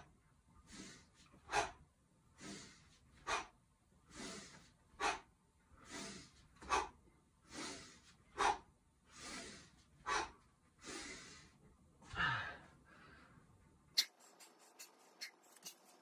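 A man's breathing during one-hand kettlebell swings: a sharp, forceful exhale about every 1.7 s, with a softer breath between each. The set ends with a longer, deeper exhale about twelve seconds in. After that come only faint, rapid light clicks.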